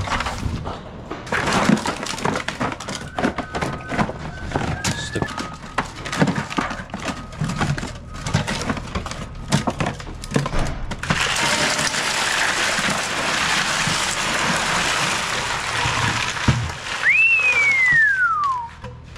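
Soda cans clunking and clinking as they are handled and dropped into a cooler, then a steady rush of ice poured over them for about five seconds. Near the end, a single whistle-like tone falls in pitch for under two seconds.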